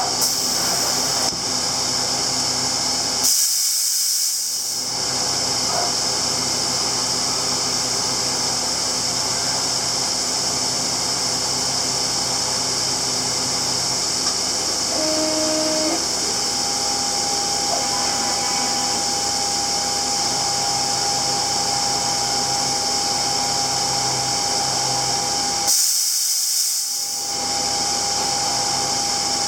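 CNC machining centre running through a tool length measurement of an end mill: a steady high hiss over machine hum and steady tones. Twice, near 3 s and near 26 s, the hiss swells for a second or two while the hum drops away, and a higher steady tone comes in about halfway through.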